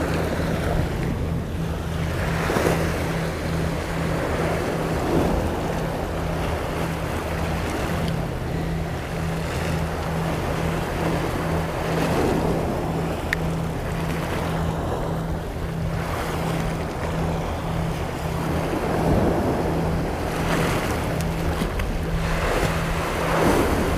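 Sea waves washing against a rocky shore, swelling every few seconds, with wind on the microphone. A steady low hum runs underneath.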